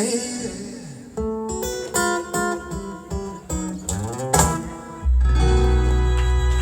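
Live acoustic guitar playing a slow run of single plucked notes as the song closes, then a full held final chord with a deep bass note from about five seconds in.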